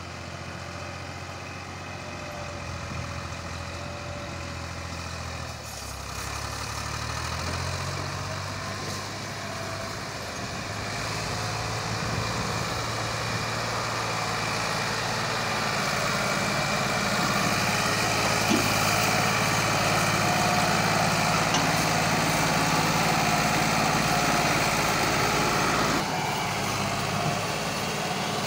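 Massey Ferguson 260 tractor's diesel engine running steadily as it pulls a heavily loaded sugarcane trolley, growing louder as it comes closer. The engine note shifts in pitch about six seconds in.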